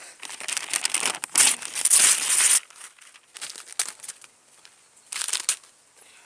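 Paper being crumpled and crinkled by hand in irregular bursts, loudest and almost continuous for the first two and a half seconds, then two shorter bursts.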